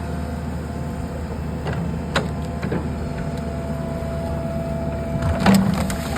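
Backhoe engine running steadily with a constant whine, and several sharp clanks, the loudest about five and a half seconds in.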